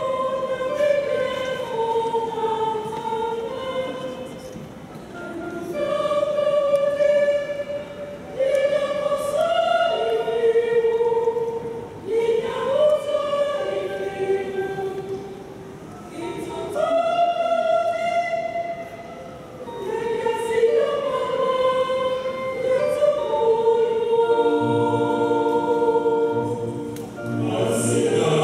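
Mixed choir of men's and women's voices singing a church song in phrases with short breaks between them, ending near the end on a long held chord.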